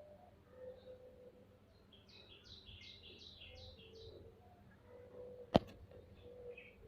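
A bird calling a quick series of about six high chirps, and a single sharp click a little later.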